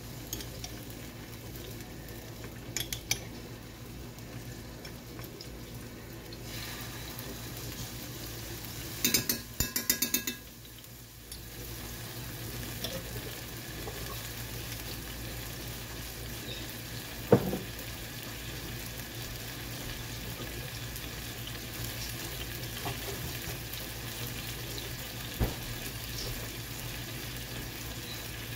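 Pre-minced garlic frying in hot olive oil in a nonstick skillet, a steady sizzle. A spoon clicks and taps against the pan as more garlic goes in, with a couple of sharp single knocks later on.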